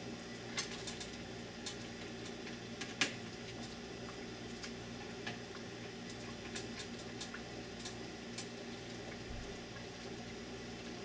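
A ladle clinking and tapping against a stainless steel soup pot as soup is scooped into a bowl, with light scattered knocks and one sharper clink about three seconds in, over a steady low hum.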